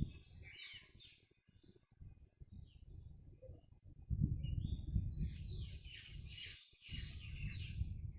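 Several birds chirping and twittering, a dense flurry of calls from about four seconds in, over a loud low rumbling noise.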